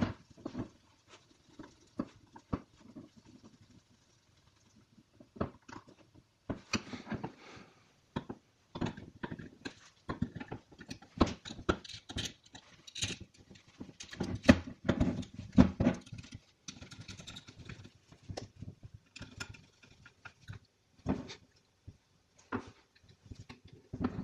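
Irregular small clicks, taps and scrapes from a hand screwdriver and small metal and plastic parts as the ignition coil and ignition module are fitted and screwed into a Honda distributor housing. The sounds come thickest through the middle stretch.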